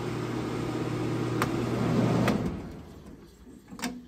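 Sears Coldspot casement window air conditioner running with a steady hum and fan noise, then switched off with a click a little over two seconds in, the sound winding down over about half a second. Another sharp click comes near the end.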